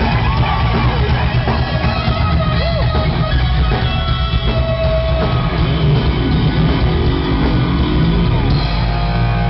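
Heavy metal band playing live, heard loud and bass-heavy from within the audience: distorted electric guitars, bass and drums with vocals over them. Near the end the music settles into steady held notes.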